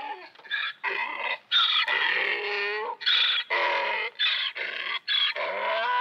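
Donkey braying: a run of hee-haw calls, higher breathy notes alternating with lower honks, broken by short gaps.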